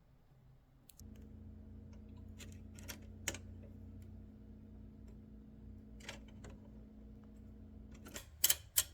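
Clicks of an Olympia Simplex typewriter's mechanism being worked by hand. Scattered light clicks come over a steady low hum, then a quick run of louder clicks near the end as the machine is tried out to check whether the bent bell trigger now trips the margin bell.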